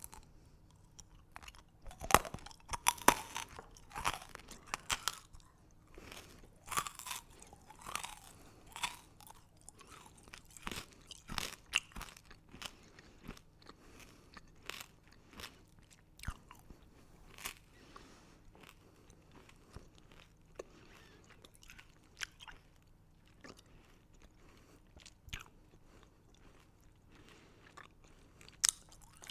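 Candy being bitten and chewed close to the microphone: sharp, crackling crunches that come thick and fast in the first ten seconds, then thin out to scattered crunches, with one loud crack near the end.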